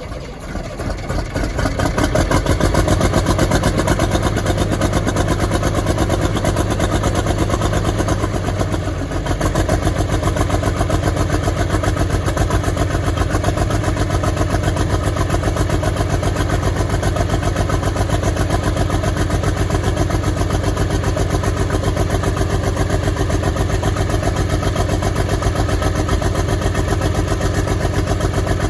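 Track Marshall 90 crawler tractor's diesel engine firing up on its first start and running with a misfire. It builds up over the first two seconds, sags briefly about nine seconds in, then runs on with an even pulsing beat.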